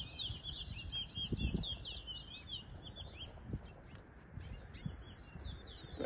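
Caged towa-towa seed finches singing a rapid twittering song of short, quick-sliding chirps. A low rumbling noise runs underneath, loudest about a second and a half in.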